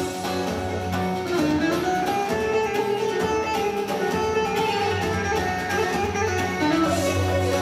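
Instrumental folk music led by a plucked string instrument, with sustained melody notes over a steady bass and no singing.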